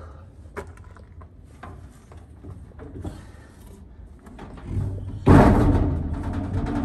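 Light knocks and handling noise, then about five seconds in a sudden loud scraping rush that fades over a second or so, as something heavy is tugged at and does not come up.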